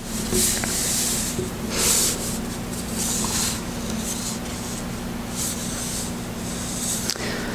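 Paper pages rustling and rubbing as they are handled at a lectern microphone, in uneven bursts, over a steady low hum.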